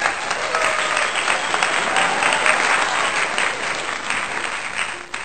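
Loud applause from a large crowd, a dropped-in sound effect, that starts abruptly and cuts off suddenly about five seconds in.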